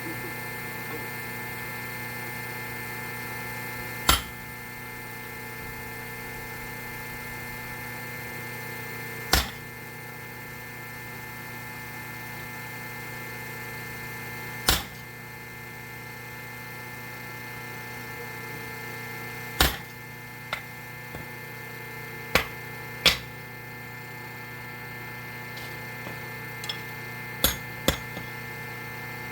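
Sharp metal strikes on hot steel while forging a hammer head's cheeks, over a steady machine hum. The strikes come singly about every five seconds at first, then closer together and sometimes in quick pairs in the second half.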